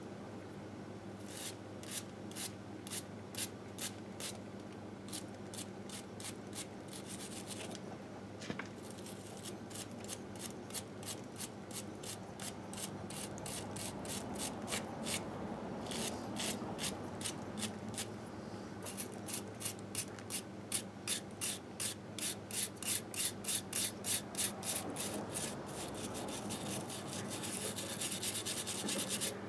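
Small wire brush scrubbing grime off a 1958 Harley-Davidson Sportster's aluminium engine crankcase in quick back-and-forth strokes, about two to three a second, with a couple of brief pauses and harder strokes in the second half.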